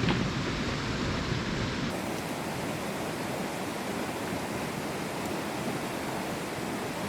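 Steady rushing of flowing stream water, a constant hiss-like wash. About two seconds in it shifts abruptly to a thinner, hissier sound with less low rumble.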